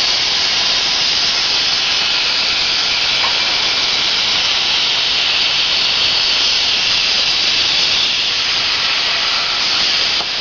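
Plasma torch of a portable CNC plasma cutting machine cutting steadily: a loud, even hiss with no breaks.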